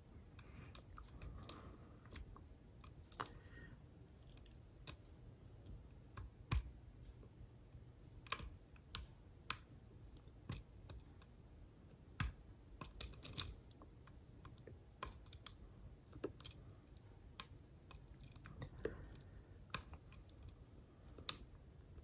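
Lock pick working the pin stack of an Assa Ruko cylinder lock: faint irregular tiny clicks and light scratching as the pins are lifted against tension. The clicks come as the pins ride over the shelf-like edges of the Ruko's pins, which the picker reads as small bits of progress.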